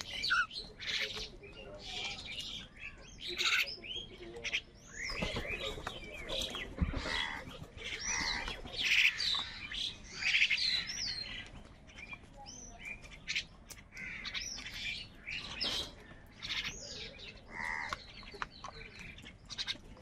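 A flock of house crows calling over food, with harsh squawking caws broken up by short chirping and whistled calls from smaller birds, in irregular clusters.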